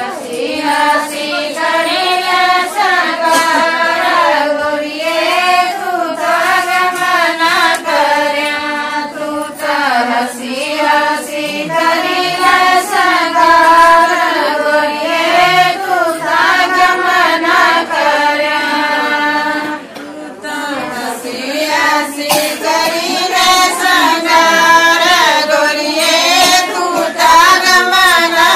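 A group of women singing a Himachali Pahari bidai song, the bride's farewell lament, together in one melody, with a short break about twenty seconds in.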